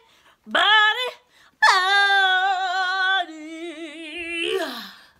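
A woman singing a cappella: a short note, then a long held note that turns quieter and wavers in its second half before sliding down at the end.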